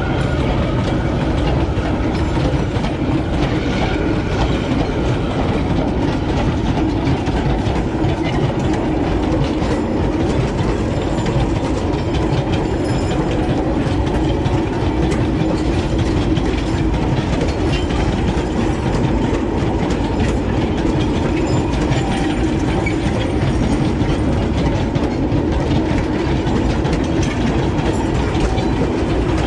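Loaded sugarcane wagons of a narrow-gauge (762 mm) sugar railway train rolling past close by: a steady rumble with a constant fine clatter of wheels on the rails.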